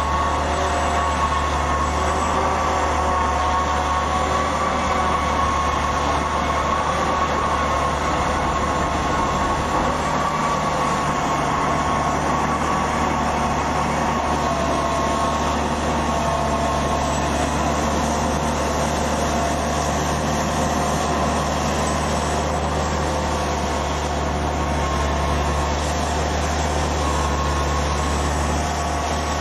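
MeriTractor Suocco S500 tracked tractor running steadily under load as it pushes an RT-600 T leveller through peat: a continuous low engine drone with a steady higher whine over it.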